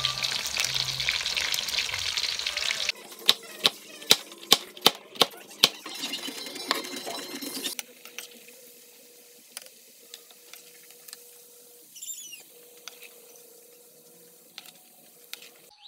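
Pork frying in bubbling fat in a wok, a loud, even sizzle. It is followed by a metal slotted ladle clinking against the wok about seven times in quick succession over quieter frying. Near the middle the sizzle drops to a faint hiss of potato and carrot frying, with a few scattered clinks of the ladle.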